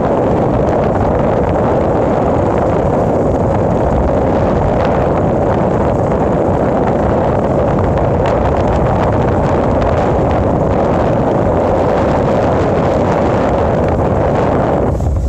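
Motorbike engine running steadily while riding, under heavy wind rumble on the microphone.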